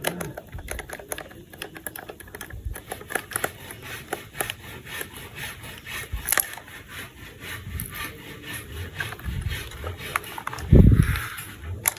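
Plastic toy train parts being handled and fitted together: many small irregular clicks, taps and rubbing, with one louder dull thump near the end.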